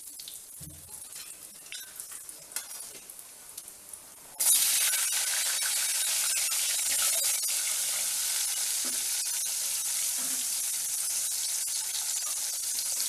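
Mustard seeds and spices crackling and popping in hot sesame oil in a steel kadai. About four seconds in, a sudden loud sizzle as shallots and garlic cloves are tipped into the oil, which then fries steadily.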